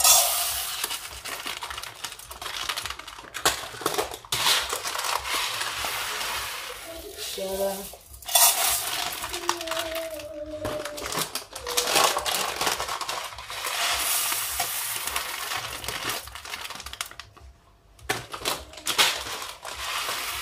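Dry uncooked rice pouring from a plastic bag into a metal tin can used as a measuring cup, then tipped into a steel pot: a steady hissing rush of grains on metal, with the bag crinkling. It comes in several pours with short breaks between them.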